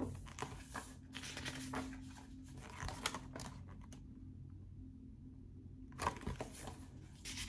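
Pages of a paperback book being turned and handled, paper rustling and crinkling for the first few seconds and again briefly about six seconds in.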